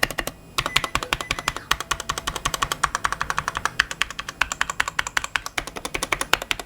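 Fast, continuous typing on the NYK Ezalor tenkeyless mechanical keyboard with Outemu switches: many key clicks a second, with a brief pause just after the start.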